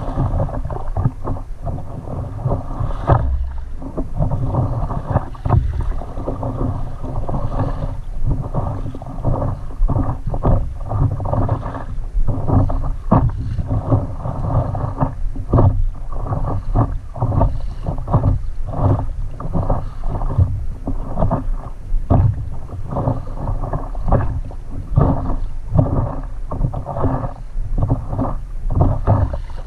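Water sloshing and splashing against a stand-up paddleboard as it is paddled through light chop, with a steady low wind rumble on the microphone. The sound is dull, with little high end, and full of irregular small splashes.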